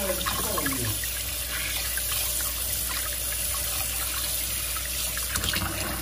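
Kitchen tap running steadily into the sink, the stream splashing over a hand being rinsed and then into a bowl.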